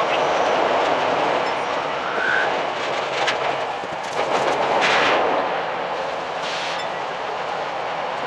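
Tokyo Metro 10000 series train running, heard from inside the car: a steady noise of wheels on rails, broken by a few sharp clicks from the track, the loudest about five seconds in.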